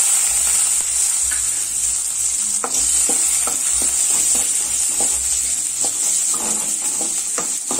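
Chopped onion and green chilli sizzling in hot oil in a metal kadai with a steady hiss. From a few seconds in, a wooden spatula stirs and sautés them, tapping and scraping the pan about three times a second.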